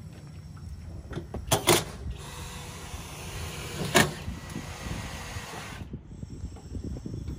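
A power drill runs for about four seconds, starting and stopping abruptly, as holes are pre-drilled through composite decking into the aluminum frame of a boat lift. Sharp knocks of tools on the deck come just before it and once in the middle.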